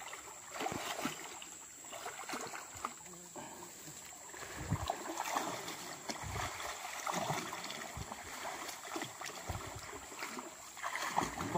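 Water splashing and sloshing as people wade chest-deep through a muddy stream, churning it up; irregular strokes of splashing that grow fuller around the middle.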